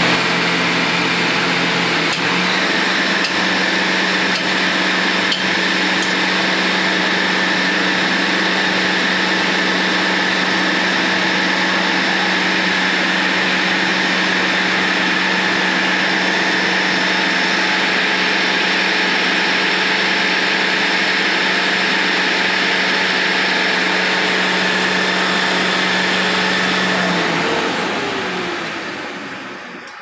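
A machine's motor running with a steady, loud hum, its pitch stepping up slightly about two seconds in. Near the end it slows with a falling pitch and dies away as it is switched off.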